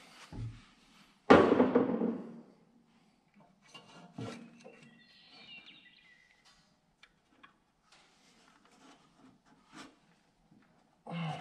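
Hands working at an 8N Ford tractor's open distributor: a loud rubbing knock about a second in, then scattered light clicks and faint rubbing as the points and distributor parts are handled.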